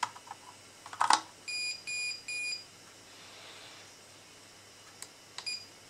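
Two sharp clicks as test-probe tips are pushed into a mains socket, then the EONE ET201 multimeter-oscilloscope's beeper sounding three even beeps of about half a second each. Near the end come two small button clicks and one short key beep.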